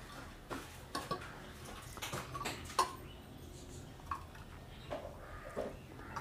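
Steel ladle clinking and knocking against a steel bowl and the rim of a kadai while hot milk is scooped up and poured across: about ten light knocks at uneven intervals, the loudest a little under three seconds in.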